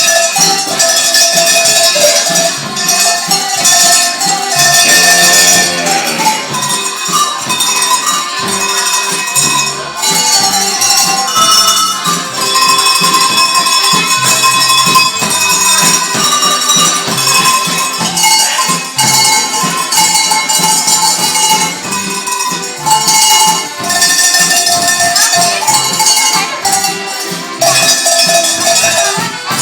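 A set of tuned Bavarian cowbells played as a melody, bells struck one after another, each note ringing on.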